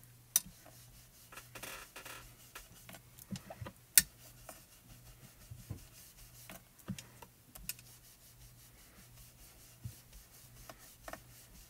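Ink blending tool rubbing and scrubbing over cardstock, a soft scratchy sound, broken by a few sharp taps, the loudest about four seconds in.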